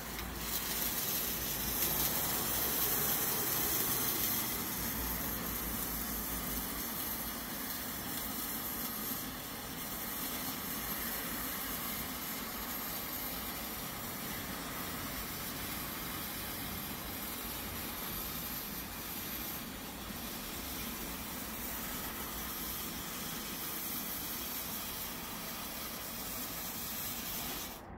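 Lesli 'Colour Sprüher' handheld firework fountain burning with a steady rushing hiss as it sprays sparks and coloured stars. It is a little louder for the first few seconds, then cuts off suddenly near the end as it burns out.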